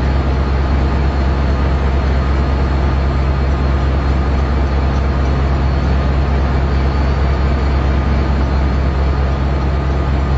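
Amtrak F59PHI diesel-electric locomotive's 12-cylinder EMD 710 engine running steadily while the train stands at the platform, a loud even low drone.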